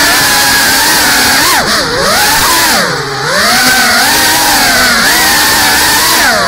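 GEPRC CineLog35 FPV drone's motors and propellers whining, the pitch sweeping up and down with the throttle, with two deep drops in pitch around two and three seconds in.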